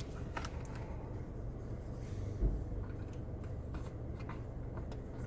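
A few faint plastic clicks and a soft thump about halfway, from handling a car's interior dome-light housing and bulb during an LED bulb swap, over a steady low hum.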